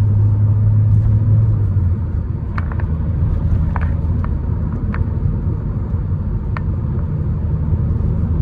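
Ford Courier's 1.5-litre, 100 HP engine and road noise heard from inside the cabin during a full-throttle 0–100 km/h run: a strong low drone under load that eases off about two seconds in, over a steady rumble, with a few faint clicks.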